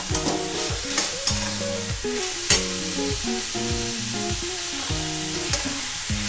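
A flat metal spatula stirs and scrapes fried pointed gourds through thick coconut masala in a metal kadai, with a light sizzle and occasional clicks of the spatula on the pan. A background music melody plays along with it.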